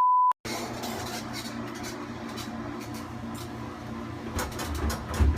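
A short steady beep, then the steady hum and hiss of a running machine, plausibly a washing machine. About four seconds in, heavy low thumps with sharp clicks start repeating.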